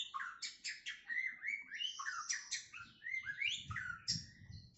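Male white-rumped shama of the Medan type singing a quick, unbroken run of short, varied chirps and sweeping whistled notes, thinning out near the end. Just out of its moult, it is singing again but not yet in full open-beaked voice.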